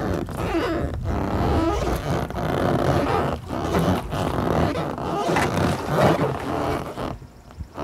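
Wind buffeting the microphone outdoors, a loud, uneven rumble that drops away briefly near the end.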